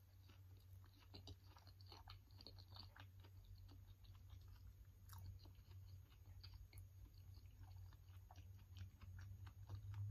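Faint close-up chewing of soft durian flesh, a run of small wet mouth clicks and smacks over a steady low hum.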